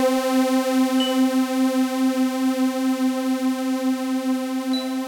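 Synthesized 'space air horn' sound effect: one long, loud, buzzy horn tone held at a steady pitch, with a slight regular wavering.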